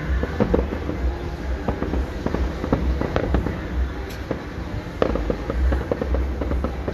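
Fireworks going off: a quick, irregular run of pops and bangs over a low rumble.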